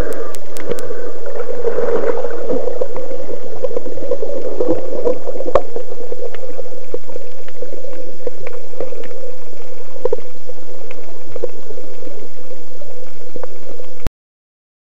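Underwater ambience picked up by a camera below the surface: a steady rushing hum of water with scattered sharp clicks, cutting off suddenly near the end.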